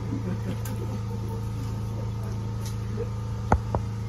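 A metal ladle clinks twice in quick succession against glass serving bowls about three and a half seconds in, over a steady low mechanical hum.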